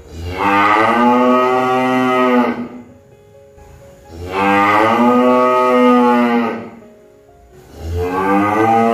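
Cow mooing: two long, steady moos of about two and a half seconds each with a short pause between, and a third moo starting near the end.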